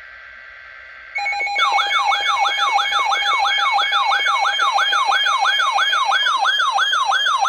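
Electronic emergency alert siren tone: faint steady tones at first, then about a second in a loud, fast rising-and-falling whoop, about three a second, over steady high tones.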